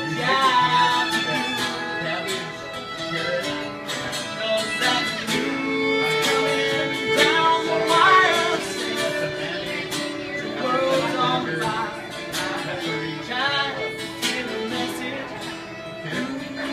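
Live acoustic folk band playing: a fiddle carrying the melody over strummed acoustic guitar, with singing in places.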